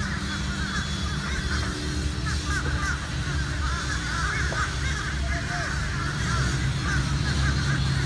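A large flock of birds circling overhead, calling constantly in a dense chorus of short overlapping calls, over the steady low hum of construction machinery engines.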